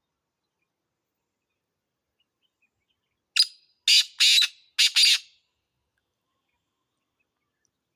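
Black francolin calling: one short harsh note, then four loud, grating notes in quick succession, the whole phrase lasting about two seconds and beginning about three seconds in.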